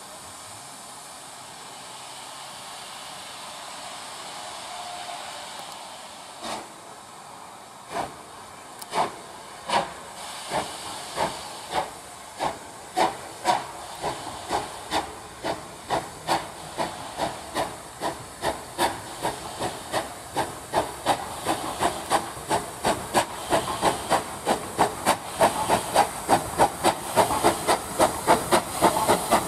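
Steam locomotive starting away with a train: a steady hiss of steam, then exhaust chuffs that begin slow and single about six seconds in and quicken steadily to about three a second, growing louder as it gathers speed.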